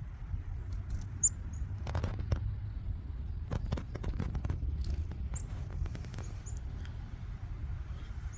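Low rumble of wind buffeting the phone microphone, with a few short, high chirps and scattered light clicks.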